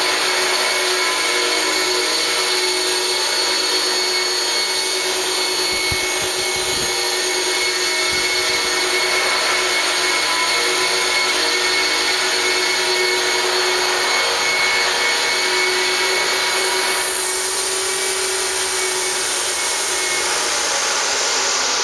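Electric 450-size RC helicopter in a scale Huey fuselage hovering: a steady whine from the motor and gears, over the rush of the rotor. About seventeen seconds in the sound drops a little and a high tone begins to fall.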